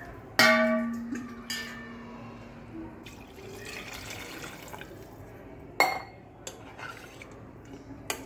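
Water pouring into a steel pressure cooker of mushroom masala while a steel ladle stirs and knocks against the pot. About half a second in there is a loud ringing clang that dies away over a second or so, with a few sharper knocks later. The water is being added to cook the rice.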